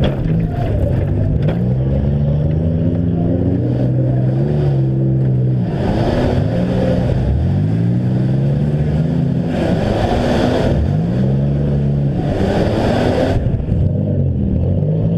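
Demolition derby engines revving up and down again and again, pitch rising and falling every couple of seconds, with louder bursts of noise about six, ten and twelve seconds in.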